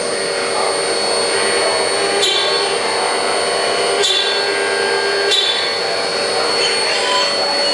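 CNC milling machine cutting a prototype bracket: a steady high-pitched spindle whine over the noisy hiss of the cut, with brief flare-ups about two, four and five and a half seconds in as the tool bites.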